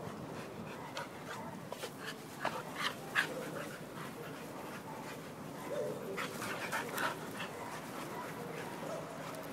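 Two young pit bull terriers play-wrestling, making short dog noises as they tussle. Clusters of short sharp sounds come about two to three seconds in and again around six to seven seconds in.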